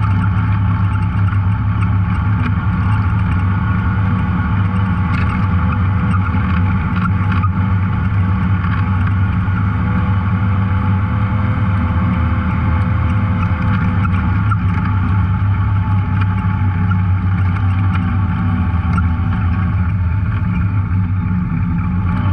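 Off-road vehicle engine running at a steady speed while under way on a trail, with a constant low engine note throughout.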